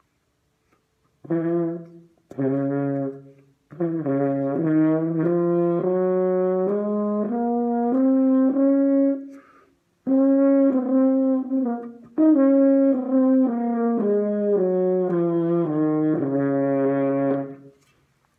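French horn playing a scale. Two separate notes come first, then a run of notes stepping up, a brief break, and the run stepping back down.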